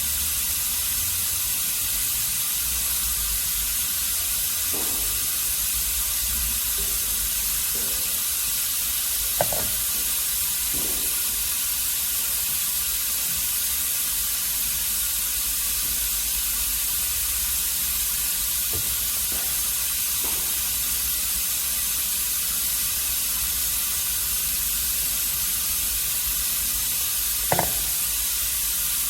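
Ultrasonic cleaner running: a steady hiss with a low hum underneath, and a couple of brief faint knocks.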